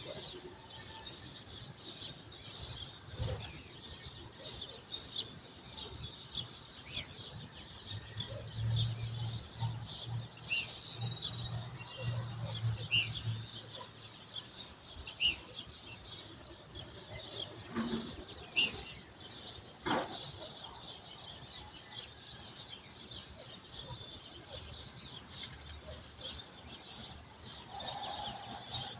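Many small birds chirping continuously in a morning chorus. A low hum comes in about eight seconds in and stops about five seconds later, and a few sharp knocks sound, the loudest about twenty seconds in.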